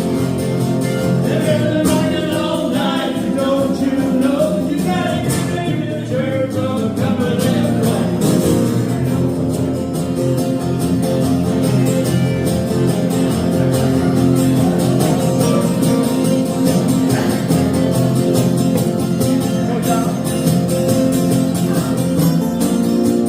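Live country song on strummed acoustic guitar, with a sung or lead melody line over the first several seconds before the guitars carry on alone.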